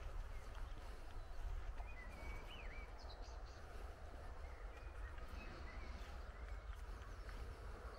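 Outdoor ambience: wind rumbling on the microphone, with a few faint, thin bird calls, a short run of whistled notes about two to three seconds in and more around five to six seconds.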